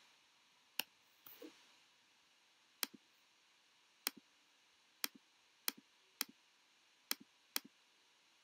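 Computer mouse clicking: about eight sharp clicks at irregular intervals, each a press followed at once by a fainter release. A brief, softer scuffing sound comes shortly after the first click.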